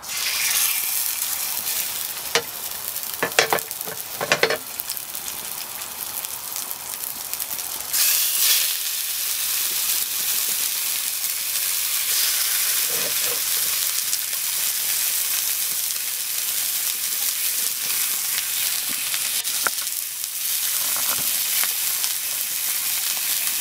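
Pork loin chops sizzling in smoking-hot oil in a cast iron skillet as they are laid in one after another. The sizzle starts abruptly and swells again about eight seconds in, with a few sharp clicks in the first few seconds.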